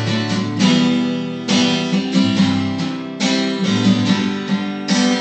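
Acoustic guitar strumming chords in a song's instrumental passage: a chord struck about every second and a half, each left to ring, with no voice.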